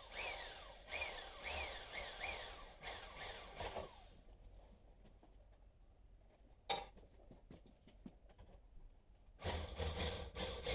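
Hand-held electric drill boring a hole through the steel Triumph GT6 windscreen frame, run in a series of short bursts, each trailing off in a falling whine as the motor winds down. It stops for several seconds, with a single click near the middle, then starts drilling again about three seconds before the end.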